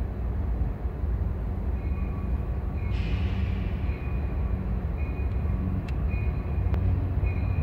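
Diesel freight train rumbling steadily, with faint high-pitched tones coming and going above the rumble.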